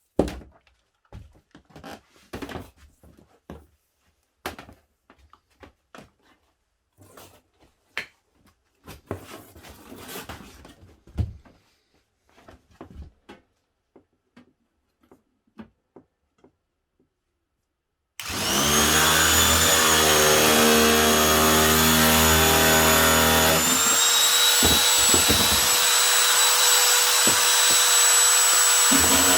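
Scattered small knocks and clicks of parts being handled, then an electric motor-driven tool switches on about two-thirds of the way in and runs steadily with a whine, stepping up slightly in pitch a few seconds later.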